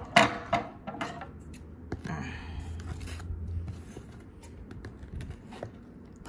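Metal scissors scraping and snipping at the packing tape on a cardboard shipping box, a scatter of small clicks and scrapes.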